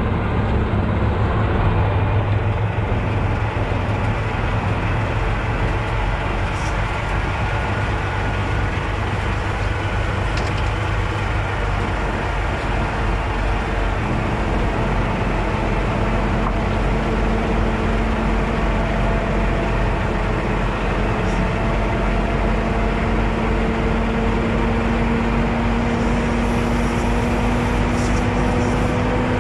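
Semi truck towing a loaded heavy-haul trailer at low speed, with steady engine and road noise. An engine tone creeps slowly upward in pitch from about halfway through.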